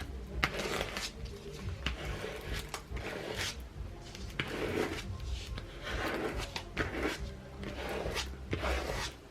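A squeegee scraping repeatedly over transfer tape laid on a vinyl design, in short strokes about one or two a second, to press the vinyl firmly onto the tape.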